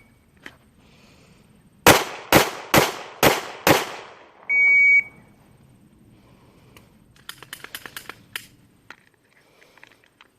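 Five quick pistol shots from a Glock 26 9mm handgun, about half a second apart, then an electronic beep held for about half a second. Near the end comes a run of faint, quick clicks.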